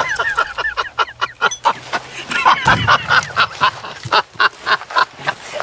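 A man laughing heartily and at length, a quick run of rhythmic "ha" sounds, about four a second.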